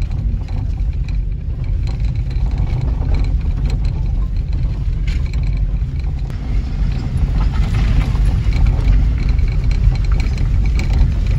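Car driving on a hill road, heard from inside: a steady low rumble of engine and road noise.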